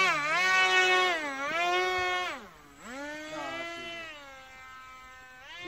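Twin brushless motors and propellers of an RC plane whining, the pitch dipping and rising again several times as the throttle is worked. About halfway through the sound drops to a quieter, steadier whine.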